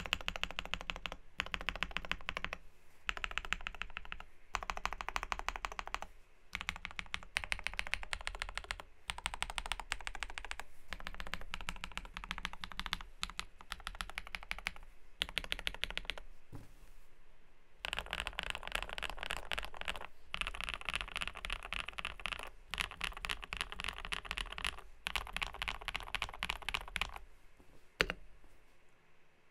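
Typing on a KBD67 Lite R2 custom mechanical keyboard with lubed and filmed Durock POM switches, a polycarbonate plate, PBT keycaps and foam dampening. Rapid keystrokes come in bursts, with a pause of about a second past the halfway point and a single sharper key strike near the end.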